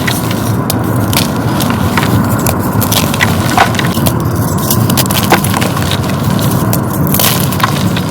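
Dyed gym chalk blocks being crushed and crumbled, a steady dense crunching with many sharp cracks throughout.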